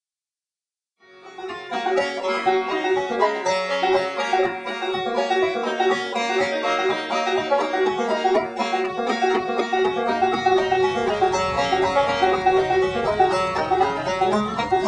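Solo banjo music in a bluegrass style, starting about a second in. From about ten seconds in, a low steady rumble joins underneath.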